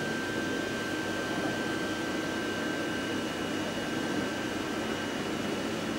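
Steady industrial machinery noise: an even hum and hiss with a thin, steady high whine on top.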